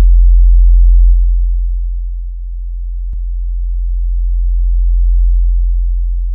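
A very deep, steady electronic drone that sinks about a second in, swells back up to its loudest about five seconds in, then slowly fades; a faint click about three seconds in.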